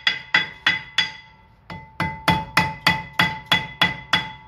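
Hammer striking a rusted steel brake rotor to break it loose from the hub, each blow a sharp metallic clang with the disc ringing after it. There are four blows, a pause of about a second, then eight quicker blows at about three a second.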